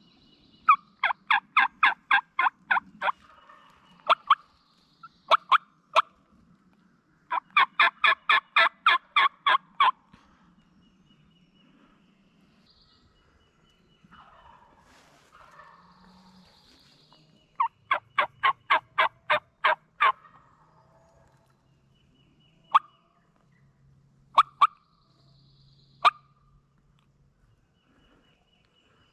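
Wild turkey calling: three runs of about ten rapid, evenly spaced notes, around four a second, with a few single sharp notes between the runs.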